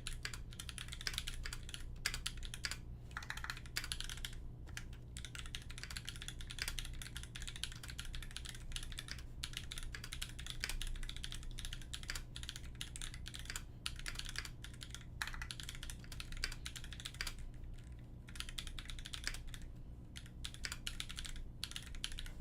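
Continuous typing on a Canoe mechanical keyboard with Holy Panda tactile switches in an aluminium plate, under GMK keycaps: a fast, irregular run of keystrokes that breaks into short pauses near the end.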